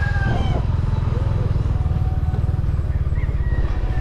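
Motorcycle engine running steadily while riding along a gravel road, a constant low rumble heard from the rider's seat.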